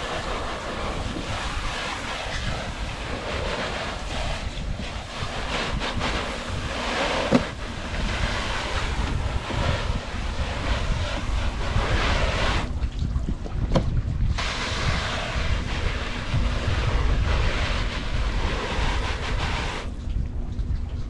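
Water spraying hard from a hose nozzle, rinsing washed-off soap, with the spray stopping briefly about two thirds of the way through and again near the end. Wind rumbles on the microphone throughout, with a few light knocks.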